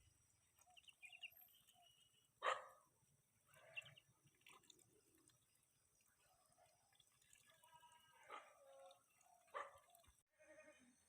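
Ducks giving short quacks now and then, the loudest about two and a half seconds in.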